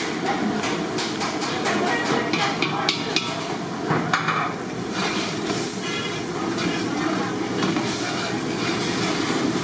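Long metal ladle stirring thick curry in a large aluminium pot, scraping and knocking against the pot's sides, with the clicks thickest in the first half. A steady rushing noise from the lit gas burner runs underneath.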